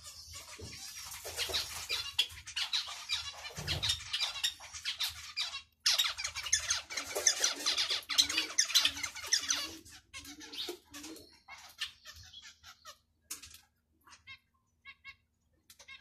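Zebra finches calling and chattering: dense runs of quick high chirps for about the first ten seconds, breaking off briefly near the middle, then thinning to scattered single calls.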